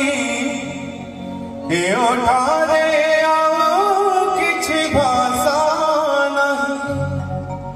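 A man singing through a microphone with instrumental backing. He holds a long note, then about two seconds in starts a new phrase that slides up and wavers in ornamented runs.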